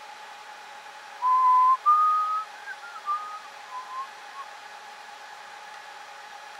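A person whistles a short phrase of about half a dozen notes, starting about a second in: two held notes, the second a little higher, then shorter notes that slide up and down. Under it runs the steady whir of the Dell PowerEdge 2650 server's cooling fans.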